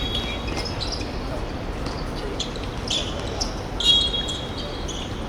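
Players' sports shoes squeaking on an indoor court floor, with two longer high squeaks, one at the start and one about four seconds in, among shorter chirps.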